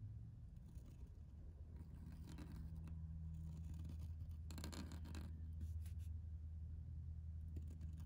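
Pointed metal calligraphy nib scratching faintly across paper in a few slow pen strokes, over a steady low hum.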